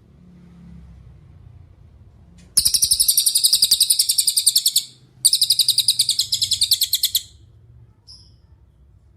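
Cililin song: two loud, high, rapid trills of about two seconds each with a short break between them, starting about two and a half seconds in, followed by a couple of brief chirps.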